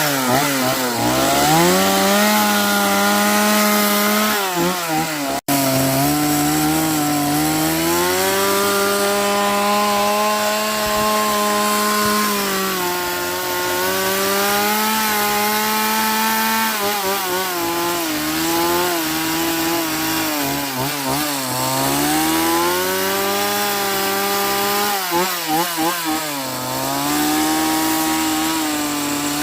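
Stihl chainsaw cutting into cedar, its engine pitch rising and falling repeatedly as the throttle and load change. A momentary break about five seconds in.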